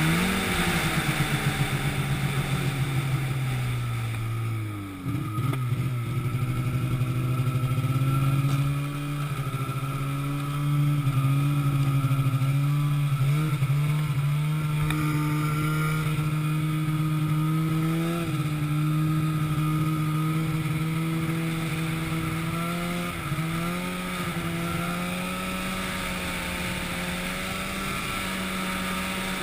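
An engine running, its pitch sinking over the first few seconds, then holding fairly steady with small changes and stepping up again past twenty seconds in.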